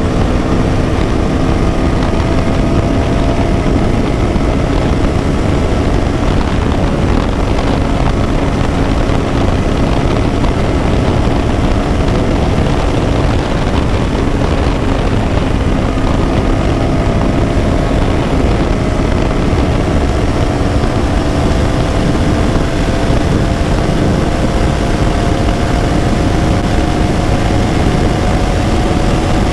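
KTM Duke 200's single-cylinder engine running at a steady cruise, its note holding nearly level and climbing slowly over the last several seconds, under heavy wind and road noise.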